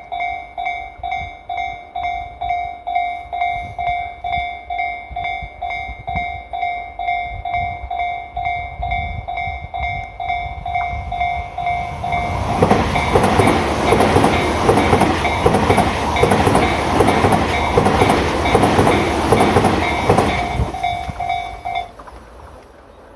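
A Japanese level crossing's warning bell rings steadily at about two strokes a second. About 12 seconds in, a Tobu Railway train passes over the crossing for about eight seconds, with a rumble and a rhythmic clatter of wheels over the rail joints. The bell stops about a second after the train has gone.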